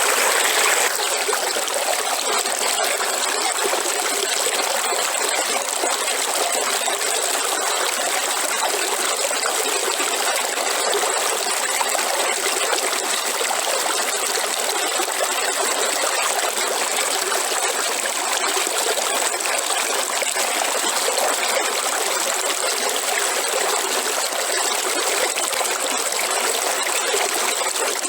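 River water flowing and trickling steadily, with a thin, steady high-pitched ring above the rush of the water.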